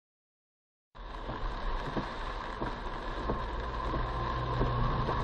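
A car driving, its engine and road noise growing steadily louder, starting about a second in.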